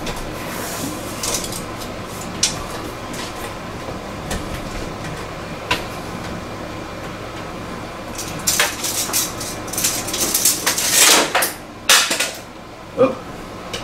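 Handling noise from a tape measure and a sign held against a door: a few light clicks, then from about eight seconds in a few seconds of quick metallic rattling and scraping, as the tape is let go and retracted and the sign is shifted into place.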